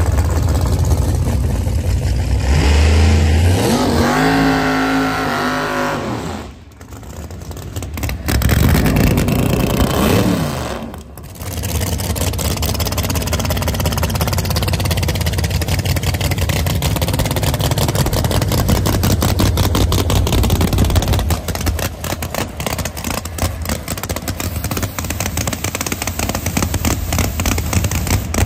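Drag-radial race car engine sound: two loud surges of an engine accelerating, with pitch rising and falling, in the first ten seconds. Then a race engine idles with a steady, choppy beat for the rest.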